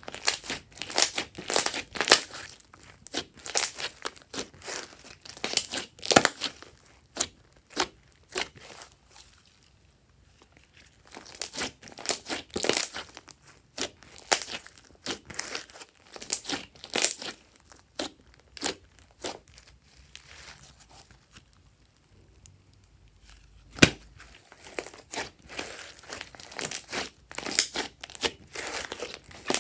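Glossy slime being squeezed, stretched and folded by hand, giving irregular clusters of crackling pops and squelches as trapped air bursts. The sound stops briefly twice, and one sharp, louder pop comes about two-thirds of the way through.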